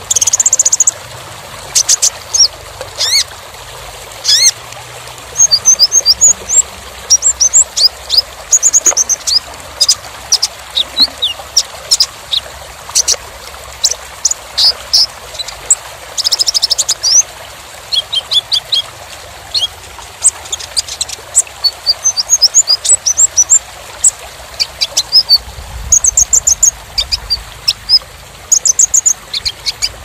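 Kolibri ninja (konin) sunbird singing: fast runs of high-pitched chirps and quick trilled phrases in bursts, over a steady background hiss.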